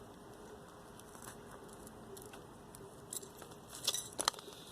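A few light clicks and clinks of loose parts as a copper yoke is pulled apart by hand: one about three seconds in, then a quick cluster near the end.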